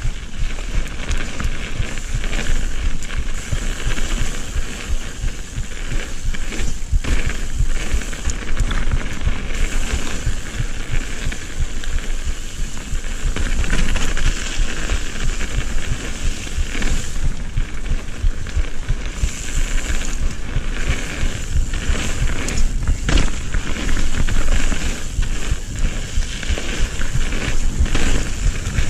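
Mountain bike descending dirt singletrack, heard from a rider-mounted camera: steady wind rush on the microphone and tyre rumble over the dirt, broken by many small knocks and rattles as the bike runs over bumps and roots.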